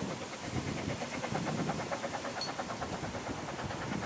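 Narrow-gauge steam locomotive Russell, a Hunslet 2-6-2 tank engine, chuffing in a rapid, even beat as it hauls its train away along the line, over a hiss of wind and steam.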